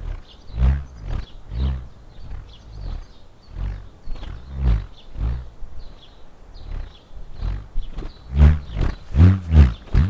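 Homemade wooden bullroarer whirled around, giving a pulsing low roar that swells and rises then falls in pitch about twice a second as it circles. The pulses grow louder and come quicker near the end.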